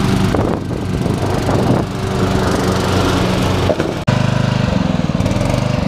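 An engine running steadily; about four seconds in the sound changes abruptly to a fast, even pulsing.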